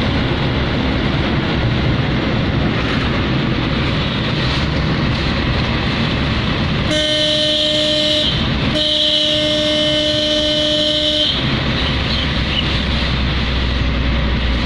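Road and engine noise inside a moving Maruti car, with a vehicle horn sounding two long blasts about seven seconds in, the first about a second long and the second about two and a half seconds.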